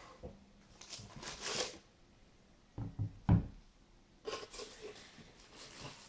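A sneaker being handled out of its box: paper rustling about a second in, then a few dull knocks around three seconds in, the loudest as the shoe is set down on the table, then more rustling.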